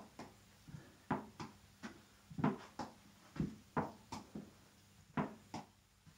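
Tennis ball bouncing on a carpeted floor and being tapped back up with the palm and back of the hand in turn. Soft taps come in pairs, bounce and hit, about one pair a second.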